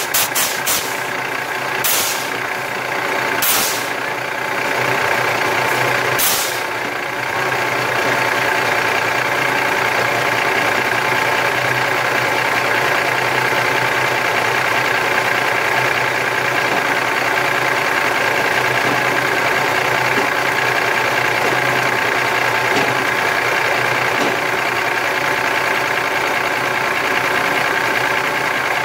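Volvo truck's diesel engine idling steadily, with three short hisses in the first seven seconds.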